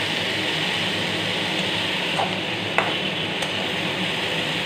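Bottle-gourd peel and potato strips sizzling in oil in a kadai while a spatula stirs and scrapes them. The spatula clicks against the pan twice a little past halfway.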